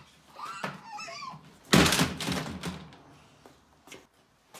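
A short pitched, wavering call, then a loud thump about two seconds in that dies away over a second, followed by a few faint clicks.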